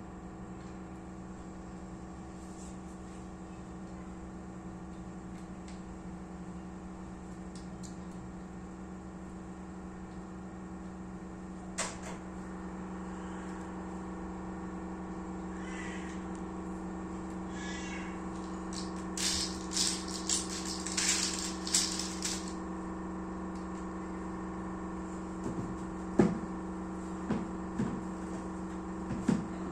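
Small plastic interlocking building blocks clicking and rattling as they are handled and pressed together. There is a quick run of clicks about two-thirds of the way in and a few sharper single clicks near the end, over a steady hum.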